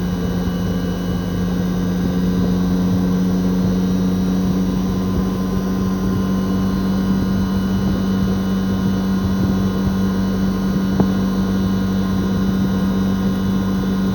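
Toshiba RAS-4069AV outdoor unit's twin-rotary inverter compressor running during the defrost cycle, with the fan stopped so only the compressor is heard. It is a steady hum with a strong low tone and fainter higher tones, unchanged throughout.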